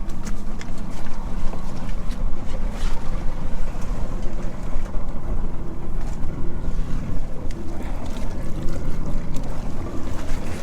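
Wind buffeting the microphone on a small boat in choppy water, with water splashing against the hull and scattered short knocks.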